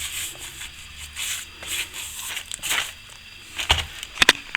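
A hand tool scraping and raking at crumbly old lime mortar around loose bricks, giving an irregular gritty scratching, with a few sharp knocks near the end.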